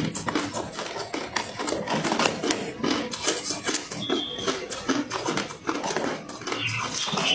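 A person chewing crunchy ice close to the microphone: a rapid, continuous run of sharp crunches.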